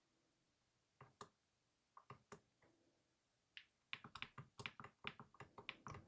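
Faint key clicks on a GPD MicroPC 2's compact keyboard: a few scattered presses, then from about four seconds in a quick run of about five presses a second, a key tapped repeatedly at power-on to get into the BIOS.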